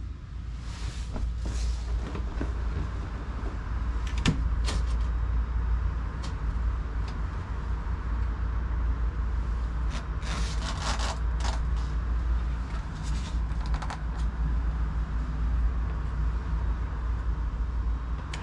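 Steady low rumble with a few sharp knocks about four seconds in, and a burst of fabric rustling around ten seconds in as sheer curtains are pulled aside by hand.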